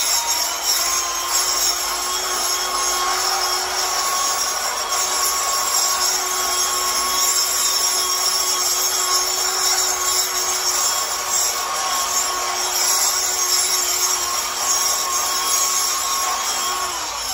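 Electric angle grinder running steadily as it grinds a concrete floor to strip old carpet glue, its steady whine dipping at the very end as the motor slows.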